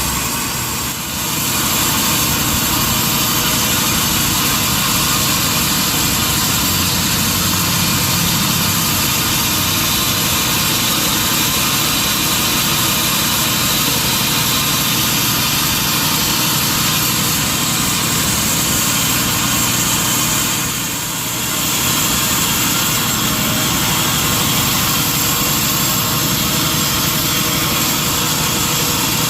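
Industrial sawmill machinery running steadily, a loud dense mechanical noise that dips briefly about a second in and again around twenty-one seconds in.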